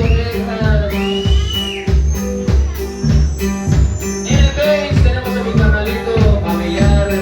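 Live band music with a steady beat: bass and drums with regular cymbal strokes under a melodic lead line, one note held for about a second near the start.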